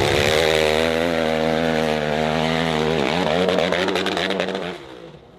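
Motorcycle engine running at high revs with a steady pitch. The pitch dips sharply about three seconds in and climbs back, then the sound fades out near the end.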